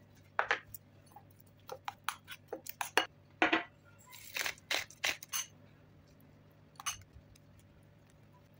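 Metal spoon clinking and scraping against a ceramic bowl while stirring tomato sauce: a quick run of sharp clinks for about five seconds, then one more clink near the end.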